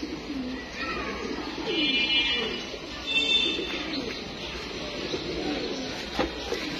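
A flock of fantail pigeons cooing, many low rolling coos overlapping one another, with two short high-pitched calls about two and three seconds in.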